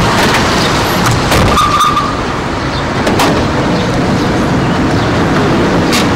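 Parking-lot traffic noise with clicks and knocks from a minivan's door being handled, and a short beep about a second and a half in.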